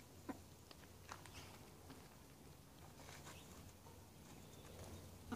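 Near silence, with a few faint, short ticks and taps scattered through it, mostly in the first couple of seconds and again around three seconds in.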